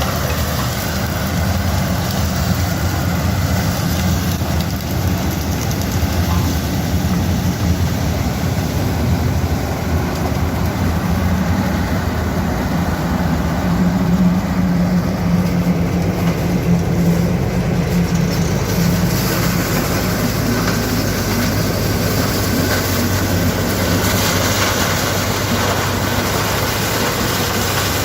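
Yanmar HS2000 sugarcane harvester's 187 hp diesel engine running steadily while the machine harvests cane. Its note shifts lower about two-thirds of the way through.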